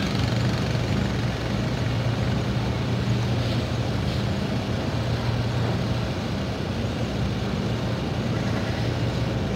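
Cargo ship's engine running steadily, a low even hum with a faint background haze.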